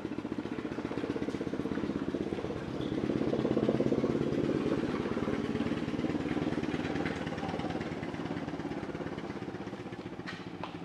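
A small engine running at a steady idle, with a fast, even pulse. It grows louder a few seconds in, then slowly fades again.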